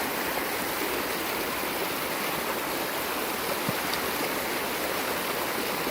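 Fast-running floodwater in a swollen creek rushing and splashing in a steady, loud wash.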